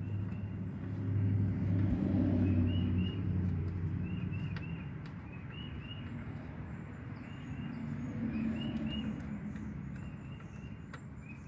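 A low vehicle engine hum swells and fades twice, as of traffic passing. A small bird chirps over it in short repeated groups, and there are a few faint clicks.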